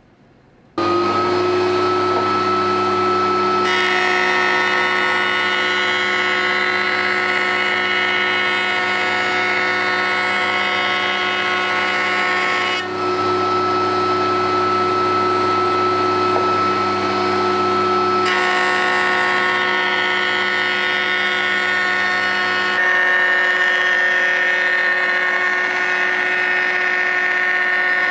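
Router in a router table running at speed, its bit cutting a wooden leg blank fed along the fence: a loud, steady whine that starts suddenly just under a second in and changes tone abruptly several times.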